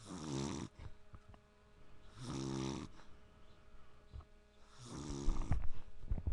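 A man snoring, three snores about two seconds apart, each a buzzing rattle on the in-breath. Near the end come several sharp clicks, louder than the snores.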